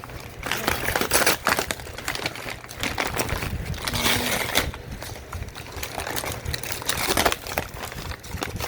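Packing paper crumpling and rustling in irregular handfuls as it is pulled out of a shipping box.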